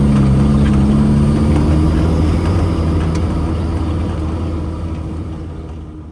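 Off-road 4x4's engine running steadily as it drives along a dirt track, picked up close by a camera mounted on the hood, with tyre and wind noise; the sound fades away near the end.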